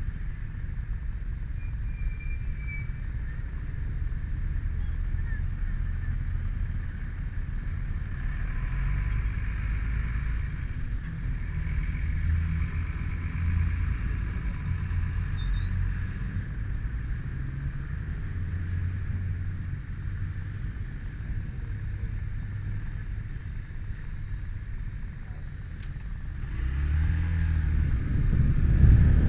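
Yamaha motorcycle engine idling with a steady low rumble amid street traffic, with a few short high beeps partway through. Near the end it gets louder as the bike pulls away.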